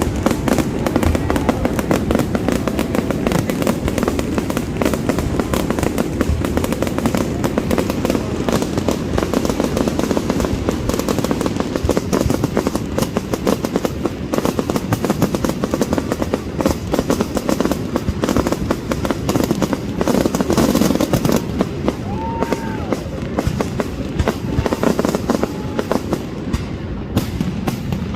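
Dense, continuous fireworks barrage: many rapid, overlapping bangs and crackles with no break.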